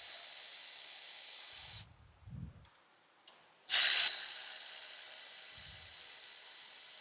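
Steady hiss with a faint high whine in it, cutting off abruptly for about two seconds in the middle and coming back suddenly, with a few faint low knocks.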